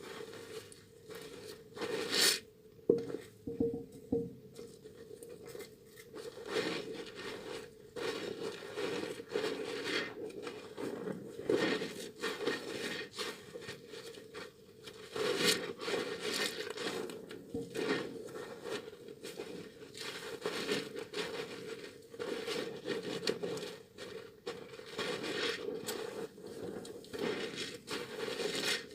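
A soaked, softened bar of tar soap being rubbed and lathered: continuous wet squishing and crackling of the lather, with many small irregular clicks.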